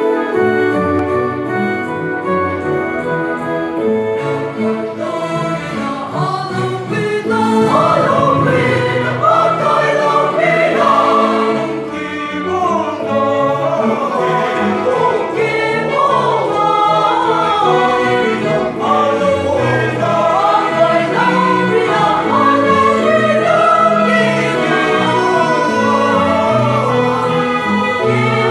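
A choir singing with instrumental accompaniment. The voices come in about seven seconds in, after an instrumental opening of held notes.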